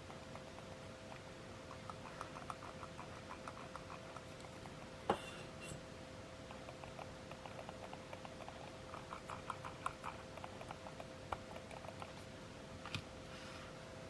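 Logitech M330 Silent wireless mouse buttons clicked in quick runs of faint, soft clicks, with one sharper click about five seconds in.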